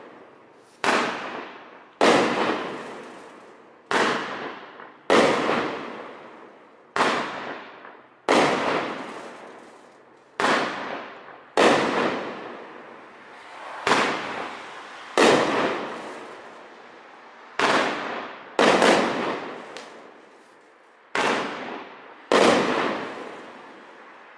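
Shogun Crown Jewels 16-shot fireworks cake firing its aerial shots in turn: about fourteen sharp bangs, roughly one every second and a half, each dying away over a second or so.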